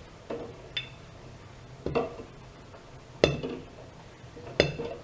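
Privileg Dynamic 7420 front-loading washing machine tumbling its load: a short clinking knock about every second and a half as the laundry drops in the turning drum, over a low steady hum.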